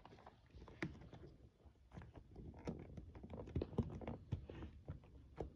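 Irregular light knocks, taps and clicks of seat parts being handled and fitted together.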